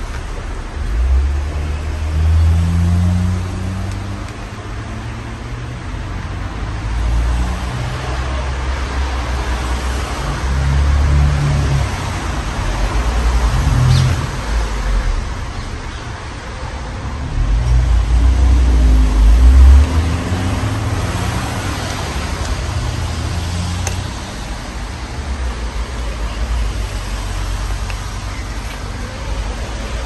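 A Casablanca Spirit of Saturn ceiling fan running with four blades, giving a steady rushing hiss of moving air. Irregular low rumbles swell and fade every second or two, the loudest about two seconds in and again around eighteen to twenty seconds in.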